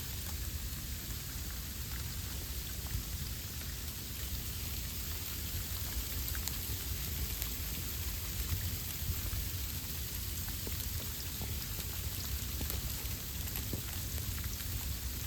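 Sleet (ice pellets) falling and striking surfaces: a steady hiss made of countless small ticks.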